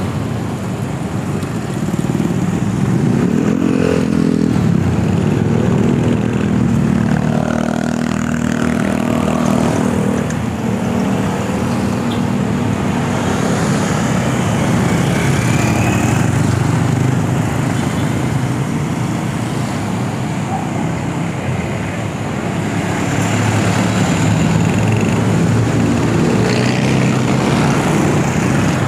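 Busy road traffic passing close by: motorcycles and motorcycle tricycles, with engines rising and fading as each goes past, over a steady low rumble.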